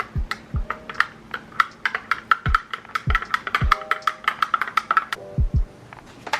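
Lo-fi background music: deep kick-drum thumps under short keyboard chords, with a busy run of sharp clicking percussion through the middle.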